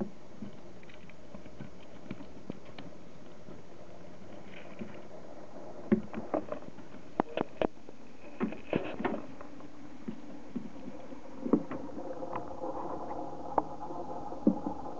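Small rodents moving through hay and shredded-paper bedding, a gerbil and then a Djungarian hamster: light rustling and scratching, with a run of sharp clicks and knocks from about six seconds in. A steady hum joins in the last few seconds.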